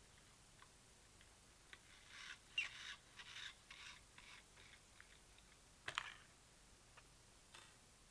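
Faint handling sounds of fingers working plastic clock hands on the spindle of a clock movement: a run of soft scrapes and rustles about two to four seconds in, then one sharp click near six seconds.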